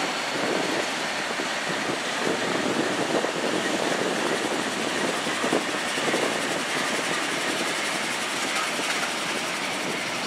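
Norfolk Southern diesel locomotives, a GE C40-8 and then an EMD SD60I, rolling past with their engines running and their wheels on the rails. The result is a steady, even noise with no single clear pitch.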